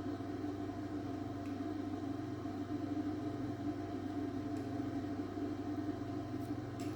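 Steady low mechanical hum from a running machine or appliance, with a couple of faint light ticks.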